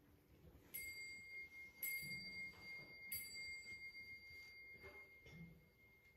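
A small bell struck three times, about a second apart, each strike ringing on at the same high pitch and slowly fading. The sound is faint.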